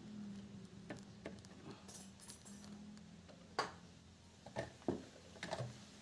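Handling noise: a handful of scattered sharp clicks and knocks, the loudest about halfway through, over a faint low hum.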